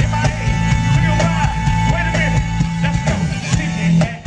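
Live funk band playing, with electric bass, drum kit, electric guitars and keyboards over a steady beat. A high note is held for about three seconds.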